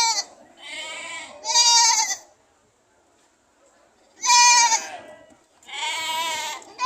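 Goats bleating: a string of high-pitched calls, each under a second long, with a pause of about two seconds midway.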